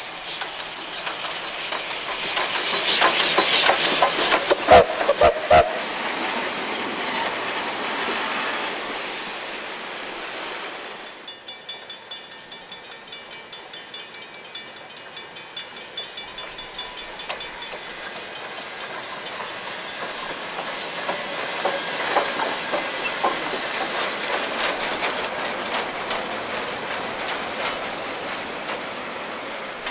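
NZR AB-class steam locomotive passing close, with steam hiss and the clatter of its wheels over the rail joints, loudest a few seconds in, with sharp clacks. After a sudden change about eleven seconds in, a level-crossing bell rings in even strokes as the train comes on again, and its passenger carriages clatter past over the rail joints.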